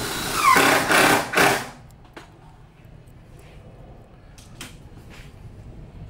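Cordless drill driving a screw into a wooden 2x2 backing strip, in about three short bursts, with a brief falling whine. It stops under two seconds in, and a few faint clicks and knocks follow.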